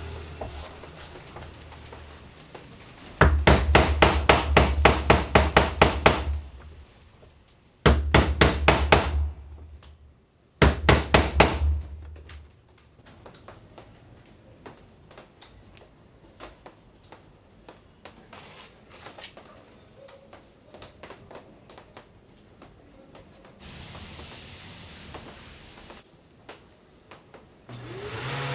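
Rapid hammer strikes on wood, about five blows a second, in three runs. The first run lasts about three seconds and the next two about a second each. Faint light knocks follow.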